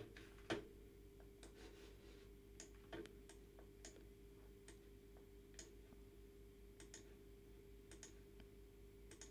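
Faint, irregular computer mouse clicks, about a dozen, the loudest about half a second in, over a faint steady electrical hum.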